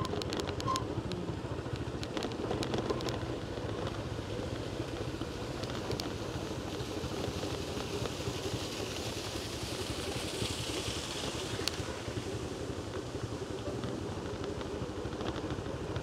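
Small motorcycle engines running steadily while riding, with wind noise on the microphone.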